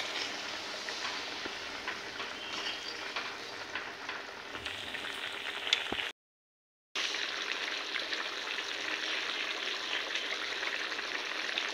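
Chicken curry bubbling and sizzling at a steady boil in a kadai, the hot water just added to it, with a sharp tick a little before halfway. The sound cuts out briefly just after the middle, then the bubbling resumes.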